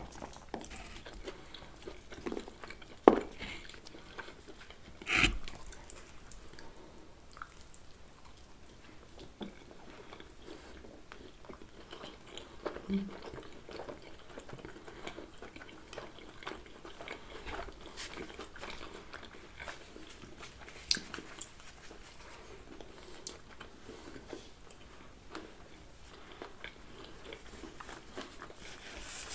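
Close-miked chewing and biting of pizza, wet mouth sounds with soft crunches of crust. Two sharp knocks, about three and five seconds in, are the loudest sounds.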